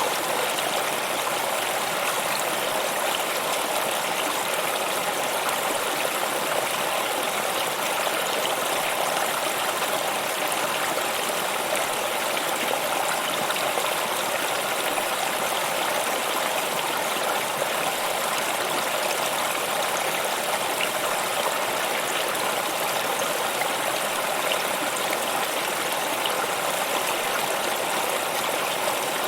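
Stream water flowing steadily, an even rushing and trickling.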